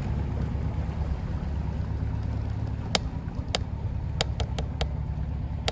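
Low, steady drone of a passing motor cruiser's engine. About three seconds in come several short, sharp clicks, a handful in quick succession.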